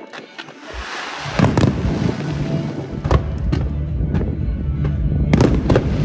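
Aerial fireworks bursting at a distance: several sharp bangs in pairs, about a second and a half in, around three seconds, and near the end, with a crackle after the first pair. Show music plays over loudspeakers underneath.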